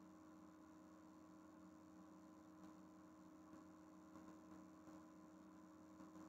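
Near silence: a faint, steady electrical hum from the recording setup.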